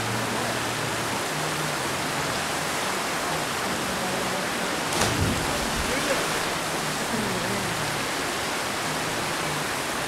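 Steady rush of creek water spilling over a granite rock slide into a pool, with a short louder burst about five seconds in.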